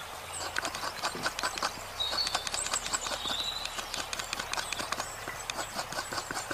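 A coconut half being grated on a serrated hand-held coconut scraper: quick, repeated rasping strokes as the flesh is shredded off the shell.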